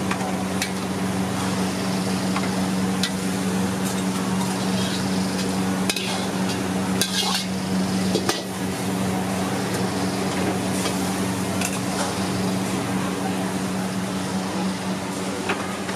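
A steel ladle clinking and scraping against a wok of boiling soup, with scattered sharp metal knocks, several close together about halfway through. Under it runs the steady low hum of the wok station.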